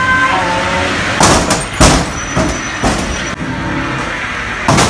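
Small amusement-ride car rolling along its rail track, with about four sharp bangs from the tunnel's swinging doors knocking shut. The loudest bang comes about two seconds in.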